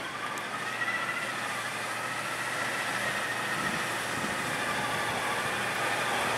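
Hummer H3's engine running as the SUV crawls through a muddy rut, growing gradually louder as it approaches.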